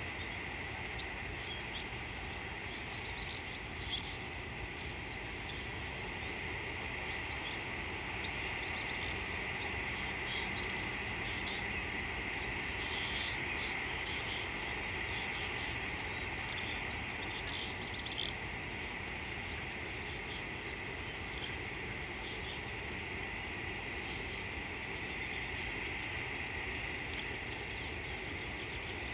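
Steady chorus of crickets and other insects: an unbroken high-pitched trilling, with faint scattered chirps on top and a low steady rumble underneath.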